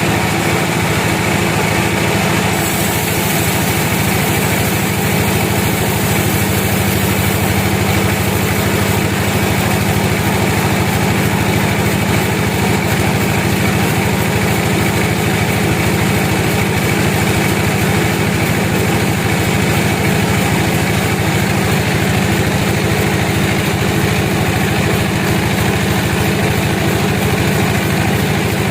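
Sawmill machinery running steadily: a constant low motor drone with an even hum and no breaks or changes in load.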